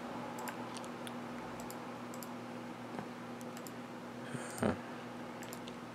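Faint, scattered clicks of someone working a computer, over a steady low hum, with one brief louder sound a little over two-thirds through.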